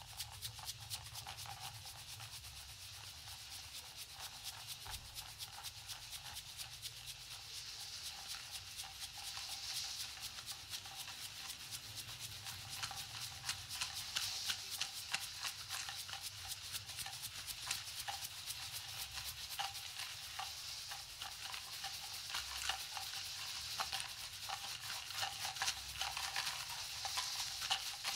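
A percussion ensemble shaking and rubbing small hand-held shakers, a dense hiss of fine grainy rattling that swells and fades in waves and grows a little louder toward the end.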